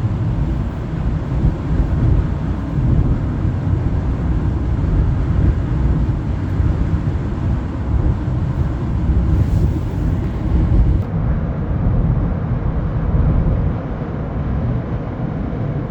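Wind buffeting the microphone: a continuous low rumble that swells and dips with the gusts.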